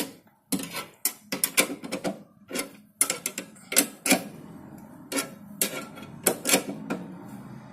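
Car jack being cranked up with its handle tool: irregular metallic clicks and clacks, a few a second, with a faint steady hum behind them from about halfway through.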